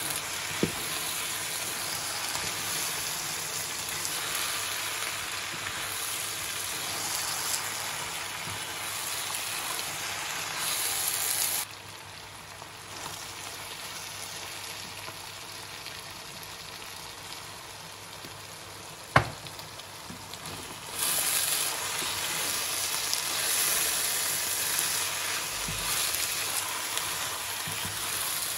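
Shredded chicken sizzling and frying in a pot while it is stirred with a wooden spoon. A little under halfway the sizzle drops quieter for about nine seconds, with one sharp knock in that stretch, then comes back louder.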